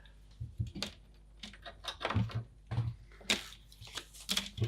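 Irregular clicks and knocks of hands pressing and handling a small plastic interface card and its taped-down mount inside a computer case.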